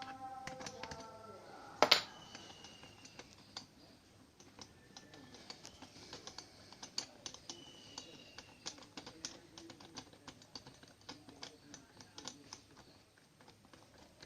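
Small metallic clicks and taps of hand tools working on the parts of a dismantled electric hand planer, with one sharp metal knock about two seconds in. A ringing tone dies away at the start.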